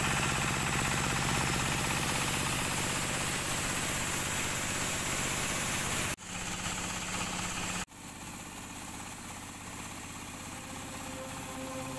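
Truck-mounted rice mill with its engine running steadily while it mills paddy, a continuous mechanical hum. It breaks off abruptly about six seconds in and again near eight seconds, then carries on quieter.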